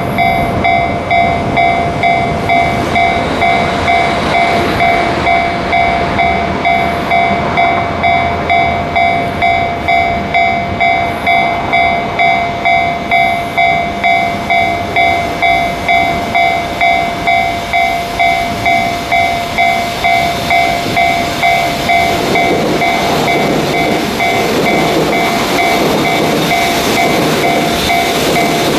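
Level-crossing warning bell ringing in fast, evenly repeated dings while a freight train of tank cars hauled by an EF65 electric locomotive runs past with rail clatter. The train noise grows louder about two-thirds of the way through, partly covering the bell.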